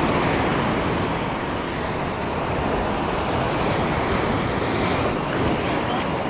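Sea surf breaking and churning against shoreline rocks, a steady rush, with wind buffeting the microphone.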